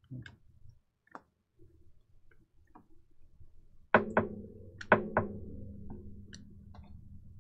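Glossy Panini Prizm football cards being flipped through by hand, their edges making light scattered clicks. There are sharper clicks about four and five seconds in, followed by a faint low hum.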